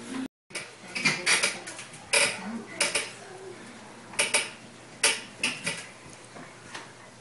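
Arm-wrestling table and its grip pegs knocking and clattering as two wrestlers set their grip and pull: an irregular string of short, sharp clacks and knocks.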